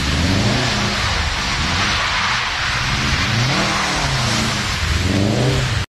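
Car engine revving up and down hard as the car is spun in circles on wet tarmac, with loud tyre noise under it. The sound cuts off abruptly just before the end.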